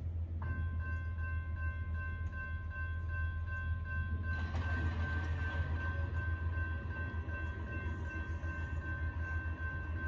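A distant diesel locomotive horn on an approaching loaded coal train, blowing one long, held chord of several notes over a steady low rumble. About four seconds in, the lowest note drops out while the upper notes carry on.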